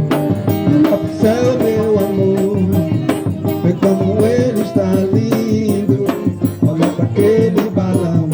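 A forró band playing live: a wavering melody over a quick, steady percussion beat.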